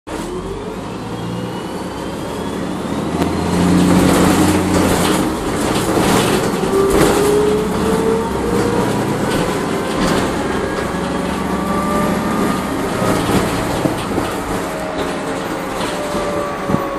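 Transit bus with a Voith automatic transmission under way, heard from inside the cabin: a low engine drone with a transmission whine rising slowly in pitch as the bus gathers speed, and a few knocks from the body.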